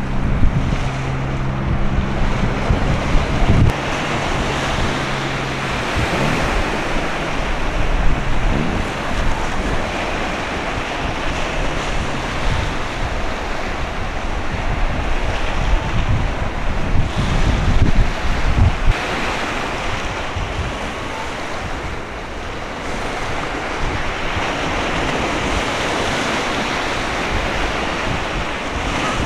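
Wind buffeting the microphone over the wash of choppy sea water, gusting hardest in the first two-thirds. A steady low hum is heard under it for the first several seconds, then stops.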